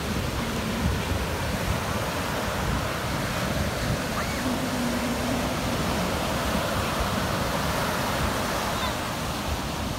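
Ocean surf breaking and washing up a sandy beach in a steady rush, with wind rumbling on the microphone.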